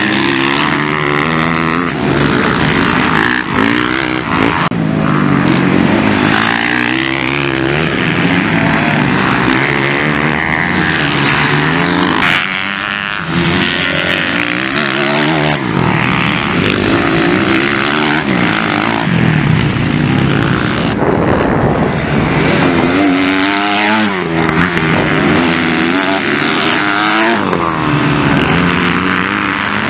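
Motocross bikes racing past on a dirt track, their engines revving up and down repeatedly as riders open and close the throttle through corners, with several bikes audible at once at times.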